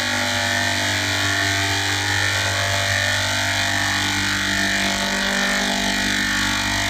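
A steady, heavily processed electronic drone: a sound stacked with pitch-shifted, distorted copies of itself in the 'G major' editing-effect style, holding several unchanging tones over a harsh hiss without a break.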